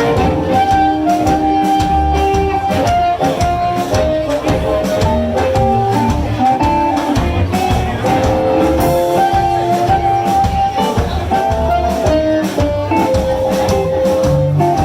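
Live blues band playing an instrumental passage: a lead line of held, bending notes over bass and drums, with guitar prominent.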